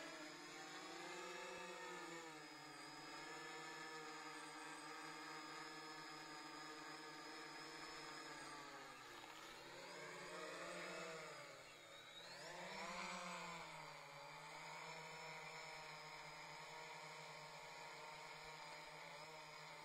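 Motors and propellers of a VTOL fixed-wing model plane in flight: a steady buzzing hum of several pitches that dips and swells a few times about halfway through, then settles back to an even tone.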